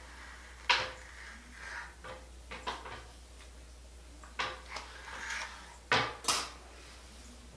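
Hair-styling tools being handled while straightening hair: irregular sharp plastic clicks and clacks about a second apart, the loudest pair near the end, with faint rustling of hair between.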